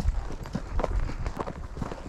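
Horse's hooves striking the mountain trail, irregular hoofbeats about two a second over a steady low rumble.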